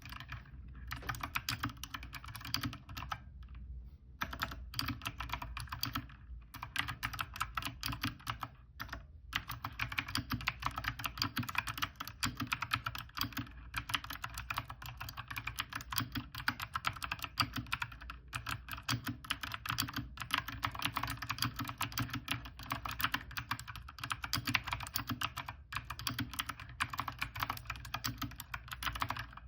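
Fast typing on a NUBWO NK50 mechanical keyboard with clicky blue switches, a dense run of keystrokes broken by a few brief pauses.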